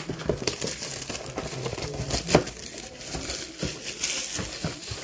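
A trading-card hobby box being handled and turned over, its plastic wrapping crinkling and rustling, with scattered small taps and one sharp knock about two and a half seconds in.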